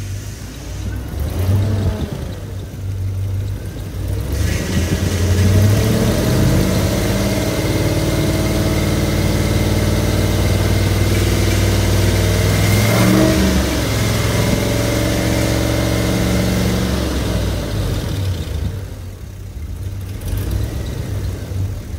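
2007 GM 6.0L V8 engine running. It revs up about four seconds in and holds there, with a brief dip and pick-up about 13 seconds in, then eases back toward idle near the end.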